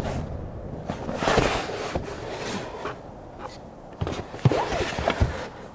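Cardboard product box being handled and turned over in the hands: rubbing and scuffing of the card, with a few sharp taps and knocks about four to five seconds in.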